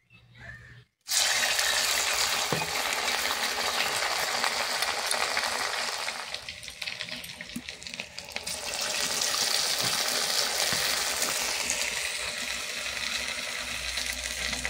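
Leftover-rice vada deep-frying in hot oil: the sizzling starts suddenly about a second in as the batter goes into the oil. It eases off for a couple of seconds in the middle, then picks up again.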